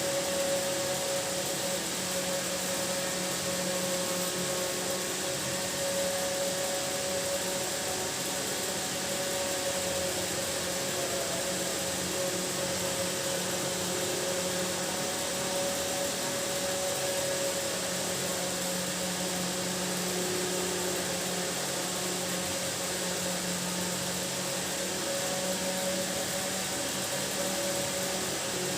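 Steady machine-like hum and hiss with a few constant tones that do not change.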